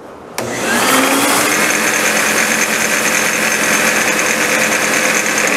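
A 12-gallon Shop-Vac and a belt sander switched on together from one switch: a click about half a second in, then both motors spin up with a rising whine and run steadily.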